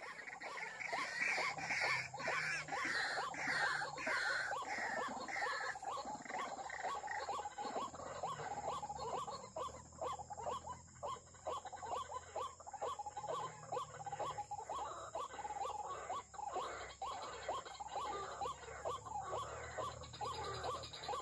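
White-breasted waterhen calls: a long, steady series of repeated croaking notes, about two to three a second, used as a lure call for the birds.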